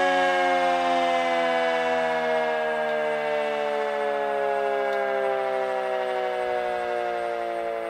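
Decot Red Arrow Model 30 outdoor warning siren sounding its daily noon test, winding down: its tone falls slowly and steadily in pitch and grows gradually quieter.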